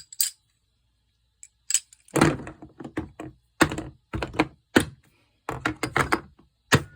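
Sockets from a metric socket set being handled: a string of irregular clacks and knocks. They start about a second and a half in.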